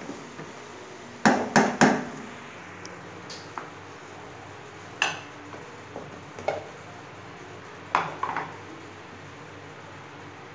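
Kitchenware knocking and clinking: three sharp knocks in quick succession about a second in, then a few scattered clinks as a glass bowl is turned over onto a ceramic plate.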